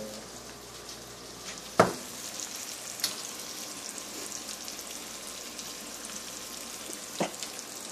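Food sizzling and crackling as it fries in a skillet on a stove burner. A sharp knock comes about two seconds in, with lighter clicks later.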